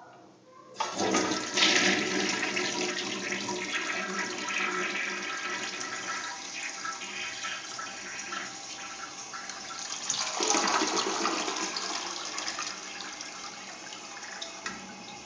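Vintage Kohler Bolton toilet flushing: a sudden rush of water about a second in, swirling and draining through the bowl, with a second surge of water noise about ten seconds in, then easing off while water keeps running.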